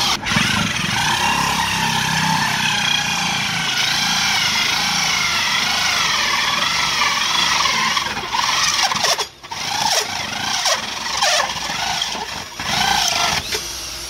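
Electric drill spinning a hole saw through a laminated wooden board: a steady whining cut whose pitch wavers as the load changes. About nine seconds in it stops briefly, then runs in short bursts until the cut breaks through.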